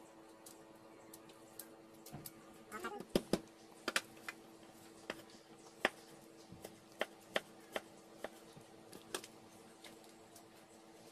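Irregular sharp clicks and taps, about one a second and busiest a few seconds in, from vegetables being pulled apart and cut with a knife on a wooden cutting board. A steady low hum runs underneath.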